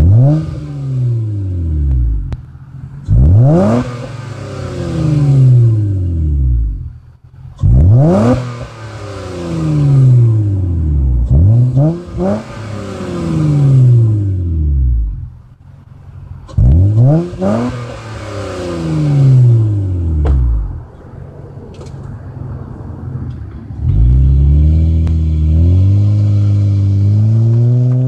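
2006 Acura TL's V6 through a Magnaflow aftermarket exhaust, free-revved in a series of about six throttle blips, each rising sharply and falling slowly back to idle. Near the end the car pulls away, its engine note rising steadily as it accelerates.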